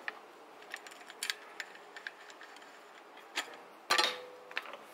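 Scattered small metallic clicks and knocks as a bicycle's front wheel is worked out of the fork dropouts. They end in a louder metal clatter about four seconds in, with a brief ring as the hub drops free.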